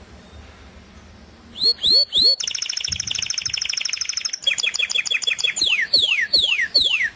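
A small songbird singing. It gives three short rising chirps, then a fast even trill lasting about two seconds, then a run of falling whistled notes at about three a second.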